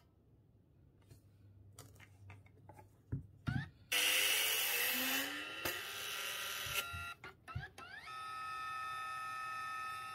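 Pricker portable photo printer printing. A few clicks, then a loud mechanical whirring with rising pitch about four seconds in, settling about eight seconds in into a steady motor whine as the sheet feeds out of the top slot.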